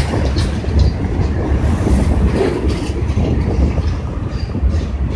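Freight train of lumber-loaded centerbeam flatcars rolling past: a steady low rumble of wheels on rail with irregular clicks and clanks.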